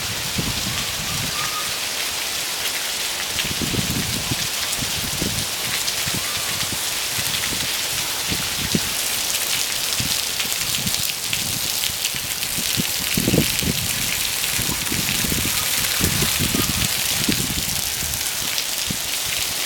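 Sudden torrential downpour: heavy rain pouring down in a dense, steady hiss, with irregular low thumps underneath.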